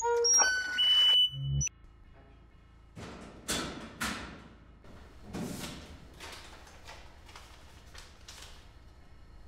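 A synthesizer tune with beeping notes ends in the first couple of seconds. Then a metal locker door is opened, with a few sharp metallic knocks and rattles, loudest at first and softer after.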